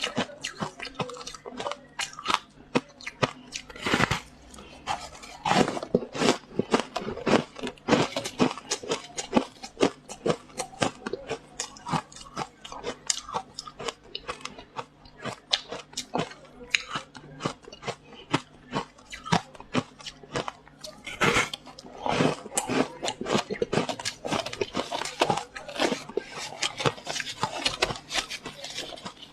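Frost ice being bitten and chewed close up: dense, irregular crunching, one bite after another, with louder crunches every so often.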